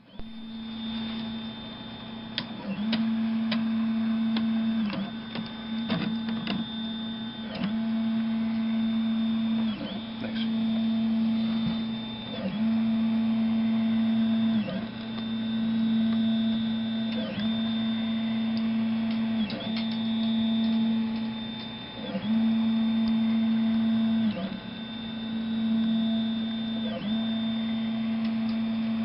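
3D printer running, its stepper motors giving a steady pitched whine that dips and breaks briefly about every two seconds, with faint clicks scattered through.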